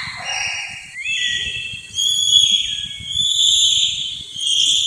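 Bonobo calling: a run of about five high-pitched squeaks and whistle-like hoots, one about a second in sliding upward.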